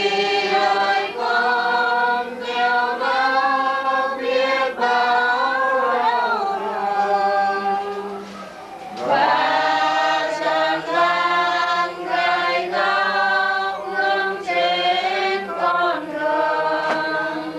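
A group of voices singing a hymn unaccompanied, in two long phrases with a short break about halfway through.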